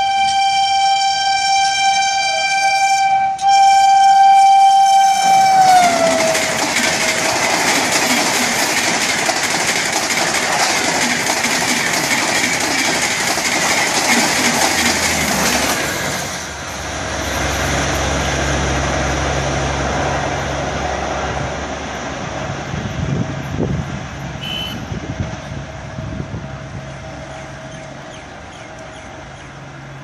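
A WAP-5 electric locomotive's horn sounds in one long steady blast, with a brief break about three seconds in, and drops in pitch as the locomotive passes at about 130 km/h. The coaches of the express then rush past with loud rail noise for about ten seconds, and the sound fades as the train goes away.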